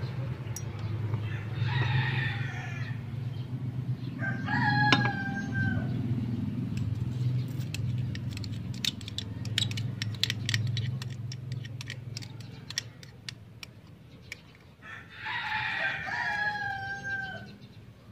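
A rooster crowing three times, about a second in, about five seconds in and near the end, each crow a held note that drops at the close. Between the crows comes a patter of tiny clicks: grains of glutinous rice poured into a small pot of water.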